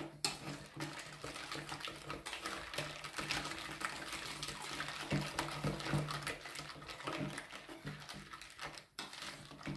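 Wire whisk stirring thick sweetened ricotta cream in a stainless steel bowl: a continuous scraping stir made of many quick small strokes, pausing briefly near the end.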